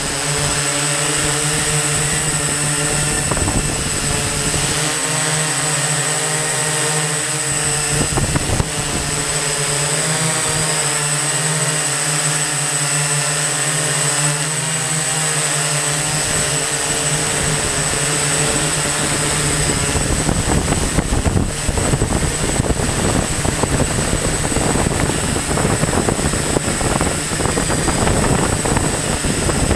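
Multirotor drone's electric motors and propellers whirring, heard from its onboard camera: a steady multi-toned whine whose pitch wavers as the motors speed up and slow, growing rougher and noisier from about twenty seconds in.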